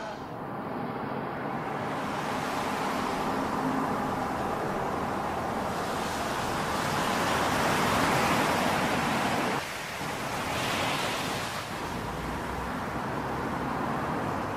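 Surf washing against a seawall: a steady rushing noise that swells near the middle and dips briefly about two-thirds through.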